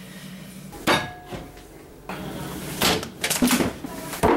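Kitchen cupboard being opened and closed, with a few sharp knocks and clatters about a second in, around three seconds in and just before the end.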